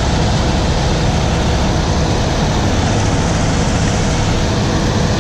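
Combine harvester running steadily in the field, a loud, even mix of low engine hum and threshing-machinery noise.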